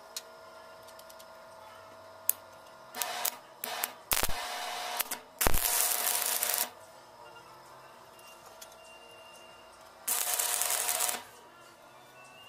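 Stick arc welding: the electrode strikes and the arc crackles and hisses in bursts, a few brief starts around three seconds in, then two runs of about a second each, a pause, and one more run of about a second near ten seconds in, laying tack welds on mild steel.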